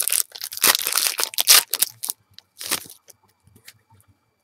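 Foil baseball-card pack wrapper crinkling and tearing as it is ripped open and crumpled, in loud crackly bursts through the first two seconds and once more just before three seconds, then a few faint clicks.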